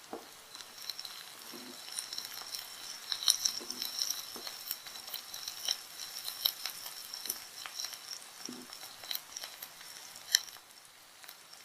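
Chopped onion and garlic frying with spices in a little hot oil in a pan, sizzling with frequent small crackles and snaps, and occasional sharper clicks as the pan contents are stirred.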